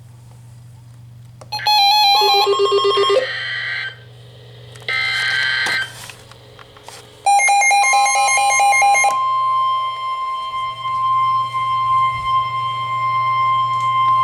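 Emergency Alert System tones relayed over AM radio: three roughly one-second bursts of warbling digital header data, then a long steady single-pitched attention tone starting about eight seconds in, over a constant low hum.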